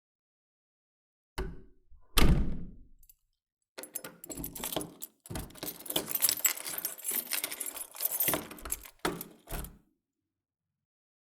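A door latch clicks and the door shuts with a heavy thud about two seconds in. Keys then jangle for several seconds as a key is worked in the lock, ending in a couple of sharp clicks as the lock turns.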